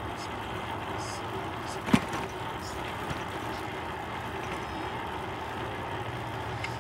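Steady background noise with a low hum, like a running vehicle, and one sharp knock about two seconds in.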